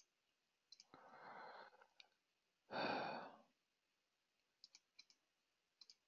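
A person breathing out into a close microphone, a faint breath about a second in and a louder sigh-like exhale about three seconds in, with a few scattered light clicks.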